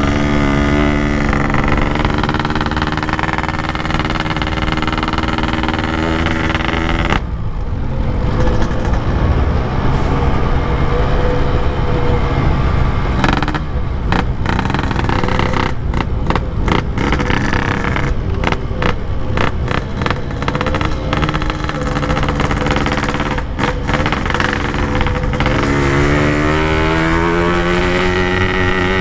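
Motorcycle engine running on the move, holding a steady pitch at first. For most of the middle it is buried under a rough rushing noise broken by short crackles. Near the end the engine comes through clearly again as its pitch rises and falls.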